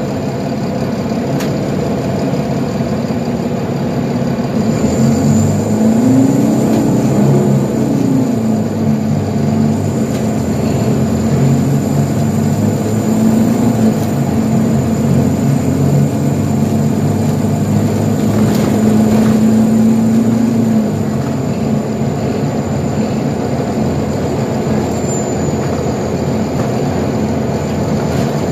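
Nova Bus LFS articulated city bus heard from inside the cabin as it drives. The diesel engine pulls up a few seconds in, its pitch climbing and then dropping as the transmission shifts, then runs fairly steadily and eases off about three-quarters of the way through. A faint high whine sits above it.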